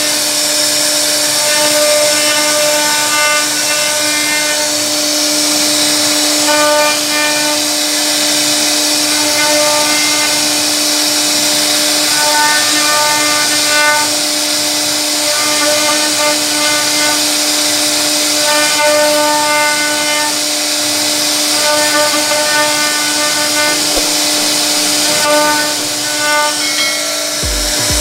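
CNC router's spindle running with a steady, high whine as its bit carves a rounded relief into a wooden panel. A second, higher whir comes and goes every second or two. A low pulsing starts just before the end.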